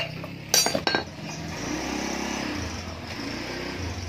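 Metal clinking of a socket wrench and engine parts handled on a Honda Tiger cylinder head as its cover is unbolted and lifted: one sharp clink at the start and a quick cluster of ringing clinks about half a second in. A steady low rumble follows.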